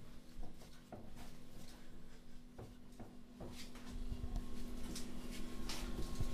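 Soft, quiet squelching and rubbing of hands kneading sticky bread dough in a ceramic bowl, with a faint steady hum underneath. From about four seconds in, a low rumble and a few scrapes of the camera being handled and moved.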